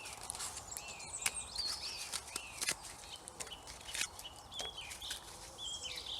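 Wild birds singing, many short arched and falling chirps, with scattered sharp clicks and crackles.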